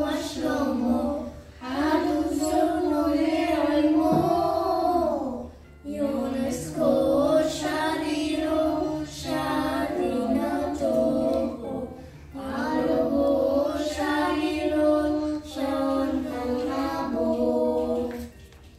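Young children singing a Christmas hymn together, in phrases of held notes a few seconds long with short pauses between.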